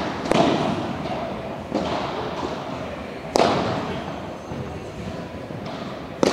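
Padel ball struck back and forth with rackets during a rally, a sharp hit every second or two. Each hit echoes in a large hall, with fainter bounces off the floor and glass walls between the hits.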